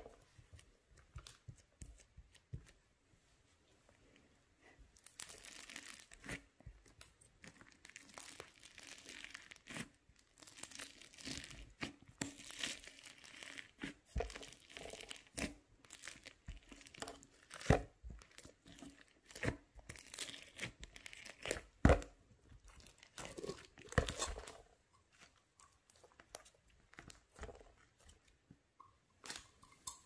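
Pink slime mixed with small foam beads being poked, pressed and stretched by hand in a plastic tub, giving irregular crackling, clicking and sticky tearing sounds. It is sparse for the first few seconds, busiest in the middle and thins out near the end.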